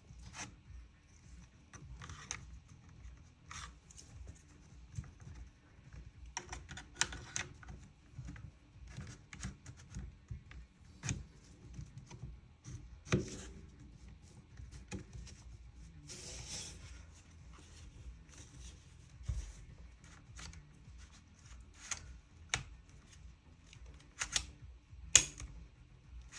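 Scattered clicks, taps and a brief scrape of parts of a Krytac Kriss Vector gas blowback airsoft gun being handled and fitted together during reassembly.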